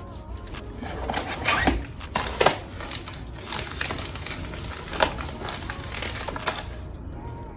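Packaging material being handled and packed into a shipping box: irregular crinkling and rustling with a few sharper taps, the loudest about two and a half and five seconds in.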